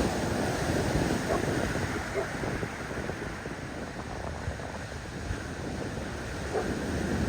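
Ocean surf washing on a beach, with wind rumbling on the microphone. The wash eases in the middle and builds again near the end.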